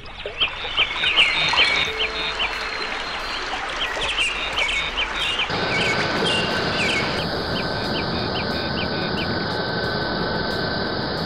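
Birdsong: many short, quickly repeated calls. About five seconds in, a steady rushing hiss with a thin high tone comes in under them, and the calls stop a couple of seconds later.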